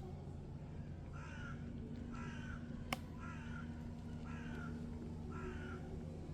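A bird calling five times, evenly about a second apart, with a single sharp click near the middle.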